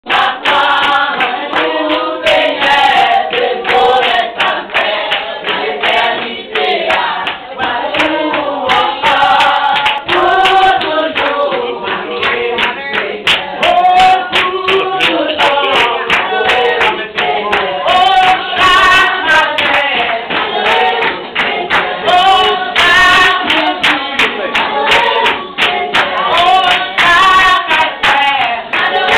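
A congregation singing a lively worship song together, with steady rhythmic hand clapping.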